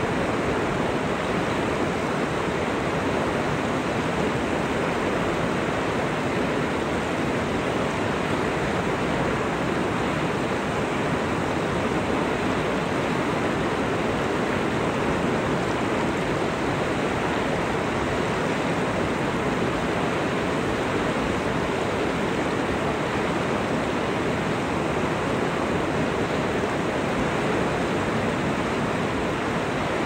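Mountain river flowing: a steady, even rush of water with no breaks or changes.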